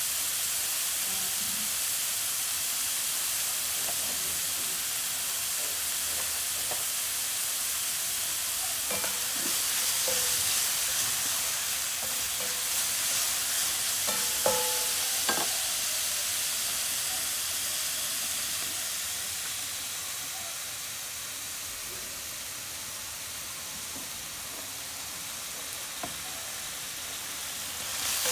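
Seafood sizzling as it is stir-fried in a frying pan on a portable gas stove. A spatula scrapes and knocks against the pan now and then, most around the middle. The sizzle is a bit quieter in the later part.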